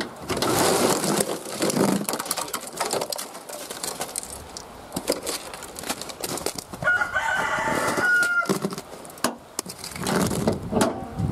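A rooster crowing, harsh and drawn out, more than once. The clearest crow comes about two thirds of the way through.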